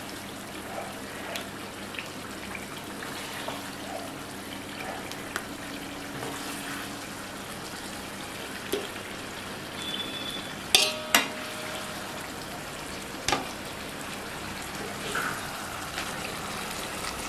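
A metal spoon scraping and knocking against a large aluminium pot as pieces of chicken curry are spooned in, with a few sharp metallic clanks that ring briefly a little past the middle. Underneath is a steady low hiss.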